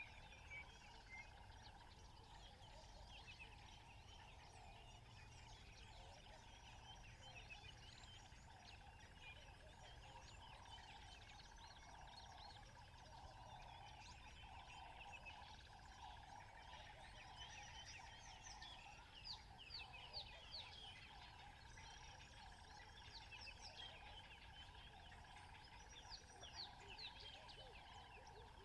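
Faint natural outdoor ambience: many birds chirping and calling, with short quick calls coming thicker in the second half, over a steady high drone.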